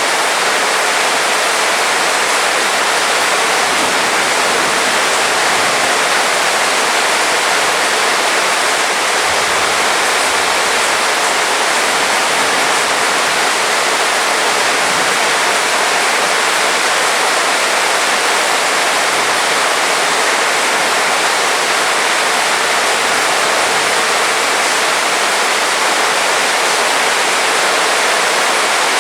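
Heavy rain falling in a steady, dense hiss, with no single drops or thunder standing out.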